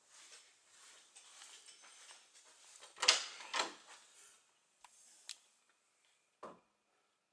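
A closet door being opened: two loud knocks about three seconds in, then a couple of sharp clicks and a thump, over rustling handling noise.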